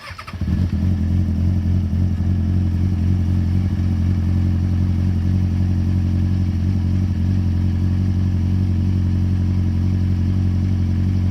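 2004 Kawasaki Ninja ZX-6R (636) inline-four engine cranking on the starter, catching within about half a second and then idling steadily on its fresh oil and new filter.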